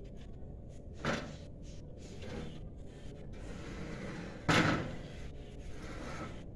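Knocks and scraping of an aluminium ladder being handled against a steel scaffold: a knock about a second in, scraping, then a louder knock past the middle.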